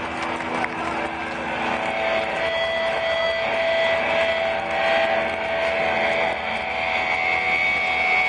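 Large rock-concert crowd cheering and shouting in a steady loud roar, heard from inside the audience, with a few long held tones over the noise.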